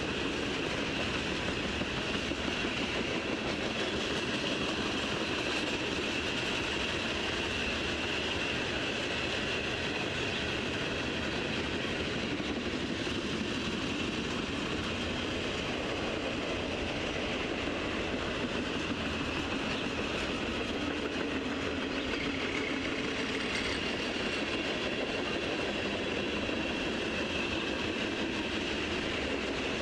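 Freight cars of a mixed manifest train rolling past, a steady rumble of steel wheels on rail with a steady high-pitched ring over it.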